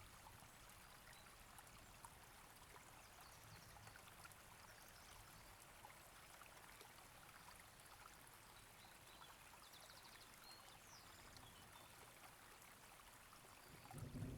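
Near silence: a faint, even hiss, with a louder low rumble starting right at the end.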